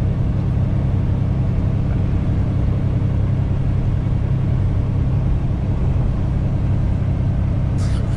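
Semi truck's diesel engine holding a steady low drone at cruise, heard from inside the cab, with steady tyre and road noise on wet, slushy pavement.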